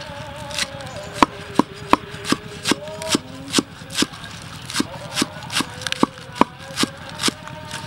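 Large knife chopping green onions on a wooden cutting board: a steady run of sharp knocks, about two and a half a second.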